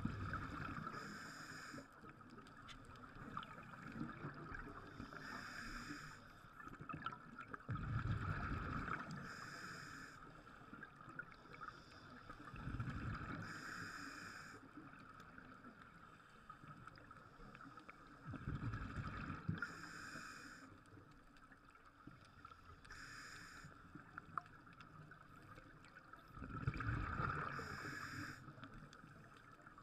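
Scuba regulator breathing underwater: a hissing inhale and a low, bubbling exhale, repeated about every five seconds.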